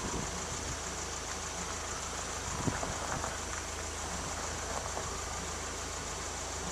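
Engine of a propane-fuelled Hyster 50 forklift running steadily, with a single sharp knock about two and a half seconds in.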